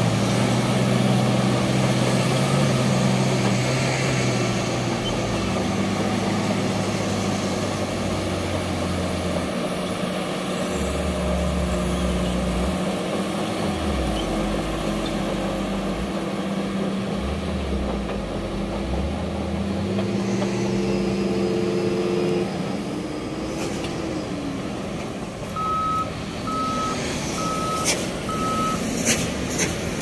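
Shantui SD16L crawler bulldozer's diesel engine working under load as it climbs a steep dirt slope, its pitch dropping and rising several times, on a ground test after a transmission replacement. Near the end, four short reversing beeps.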